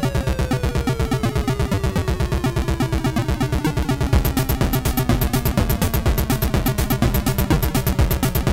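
Chiptune music from a ZX Spectrum's AY sound chip: a fast pulsing buzz under one long, slowly falling pitch sweep. About four seconds in, a regular high ticking and stronger beats join.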